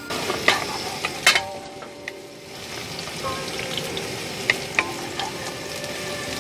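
Food sizzling in a frying pan at a camp cookout, steady hissing broken by several sharp metallic clinks, the loudest just over a second in.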